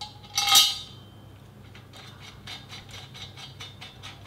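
A loud metallic clink with a brief ring as the securing pin and washer go onto the steel frame of a BION Fitness Air Walker E100. It is followed by a rapid run of light clicks as the knob-headed pin is turned in by hand.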